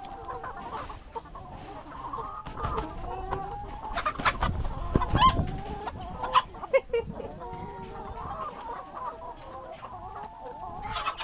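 A flock of laying hens clucking and calling, many overlapping short calls throughout, with a louder stretch of calls and scratching noises around the middle.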